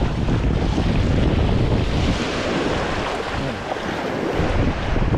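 Wind buffeting the microphone with a steady low rumble, over surf washing in the shallows.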